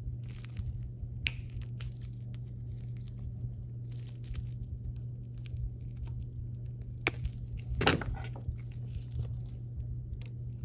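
Small clicks, snips and scraping of hand work as a temporary tie strap is cut away from a steering rack bellows, with sharp snaps about a second in and twice around seven to eight seconds in, the one near eight seconds the loudest. A steady low hum runs underneath.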